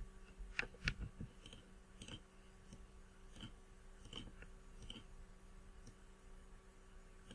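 Faint, scattered clicks from operating a computer while editing on screen, several close together about a second in and then a few more spread out, over a faint steady low hum.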